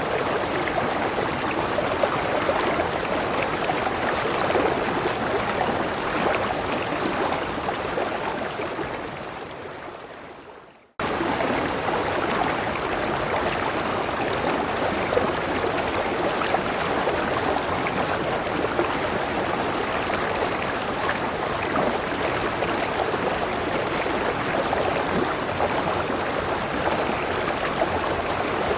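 Steady rush of a river flowing over a waterfall. About eight seconds in it fades out to near silence, then about eleven seconds in it cuts straight back in at full level, like an edit or loop point.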